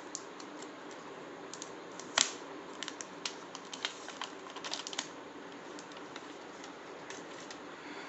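Irregular light clicks and taps from handling a smartphone and its packaging, with one louder knock about two seconds in, over a steady background hum.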